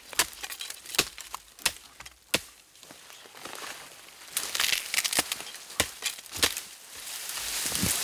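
Billhook chopping through saplings and branches: a series of sharp strikes, roughly one a second, with leaves and twigs rustling between them.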